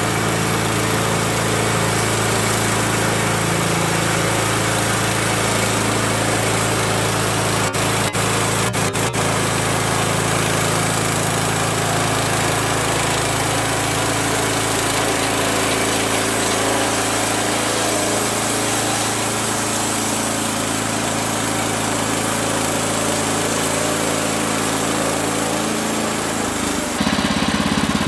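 Gas engine of a Woodland Mills HM130 MAX portable band sawmill running steadily under load as the band blade cuts along a log. The engine note shifts just before the end, and there are a few sharp clicks about eight seconds in.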